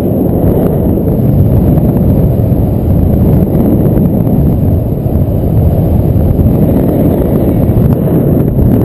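Wind noise on an action camera's microphone during a paraglider flight: a loud, steady low rushing rumble of airflow buffeting the mic.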